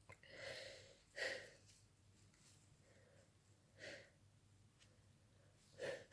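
A person with a cold breathing and sniffing during a sneezing fit: a drawn-in breath, then a short sharp burst about a second in, and two fainter breathy sounds later.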